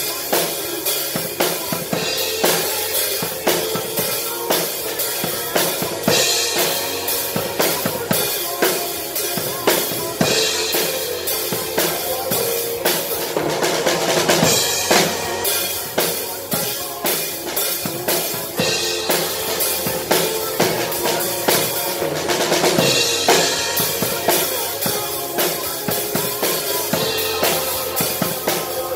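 Acoustic drum kit played live in a steady beat: kick drum, snare and hi-hat throughout, with cymbal crashes several times, about 6, 10, 14 and 23 seconds in.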